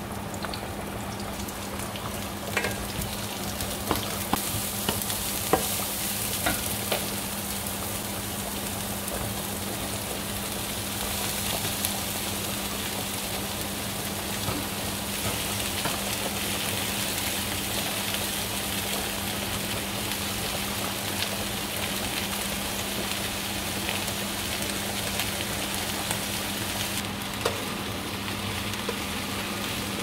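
Sliced onions and then shredded cabbage frying in a pan with a steady sizzle, stirred with a wooden spatula. Sharp clicks and taps in the first several seconds as the knife scrapes the onions off the cutting board and the spatula knocks against the pan, over a steady low hum.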